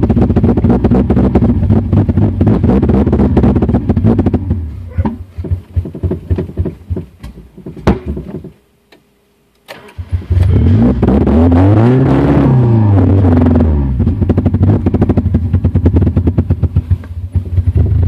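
Honda B20Z 2.0-litre four-cylinder engine running roughly and misfiring, then stumbling, sputtering and stalling about eight seconds in. After a second of silence it is restarted, the revs rise and fall, and it drops back into an uneven, misfiring idle.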